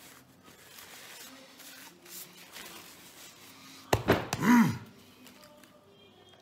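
A man chewing a mouthful of food, then about four seconds in a sharp thump as his hands come down, followed at once by a loud, pitched groan of pleasure that rises and falls over about half a second.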